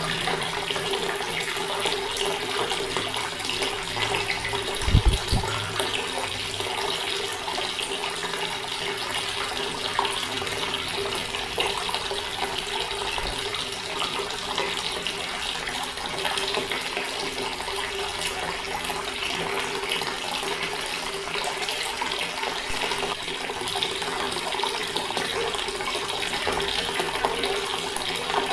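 Water tap running steadily, a constant splashing stream of water, with a brief low thump about five seconds in.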